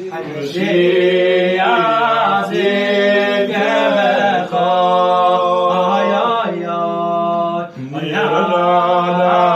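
Men singing a slow chant-like melody with no instruments, holding long notes and sliding between them, with a short breath break near the end.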